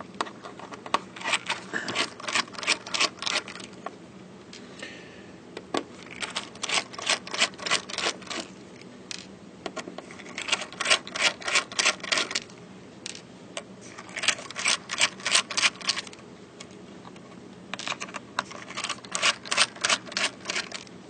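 A screwdriver taking the cover screws out of a hard drive: rapid clicking in five runs of a couple of seconds each, with short pauses between.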